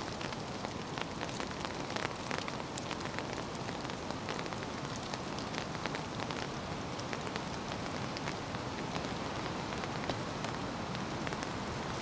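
Freshening wind in the forest trees, a steady hiss, with falling leaves ticking irregularly on a tarp overhead; not rain.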